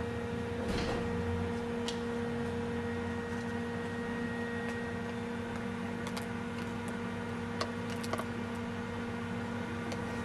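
Steady electrical hum with a constant low tone and its octave, and a few faint, scattered clicks and ticks.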